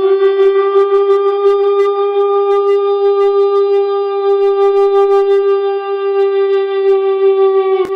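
A horn-like tone holding one steady note for about eight seconds, cut off by a click near the end.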